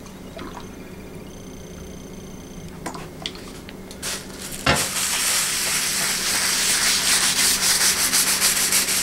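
A cloth rubbed back and forth over a wet wooden cutting board, working the liquid into the wood: a steady, loud scrubbing that starts about halfway through with a sharp knock. Before that there is only faint room tone with a couple of small clicks.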